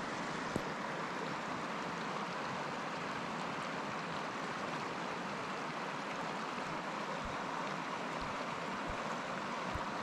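Shallow mountain river rushing over a stony bed, a steady even rush of water.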